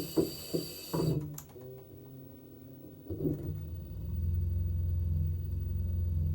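LG washing machine running: a steady low hum with a slight pulse starts about four seconds in, after a couple of knocks. Background music with a beat stops about a second in.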